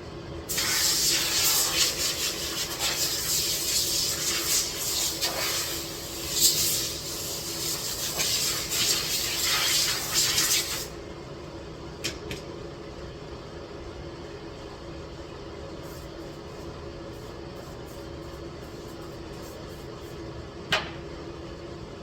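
Loud, uneven hissing for about ten seconds, then it cuts off, leaving a steady hum with a couple of sharp clicks.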